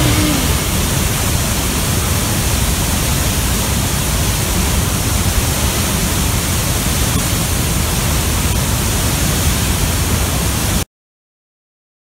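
Large waterfall's water plunging and churning: a dense, steady rushing noise that cuts off suddenly near the end.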